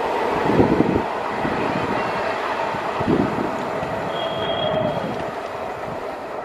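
Indian Railways DEMU power car approaching light along the track, a steady rumble of the train on the rails. A brief high wheel squeal comes about four seconds in.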